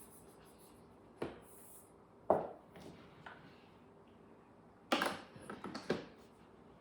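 Kitchen containers and utensils knocking and clattering as they are handled: a few separate sharp knocks, about a second in, just after two seconds, and a cluster around five to six seconds.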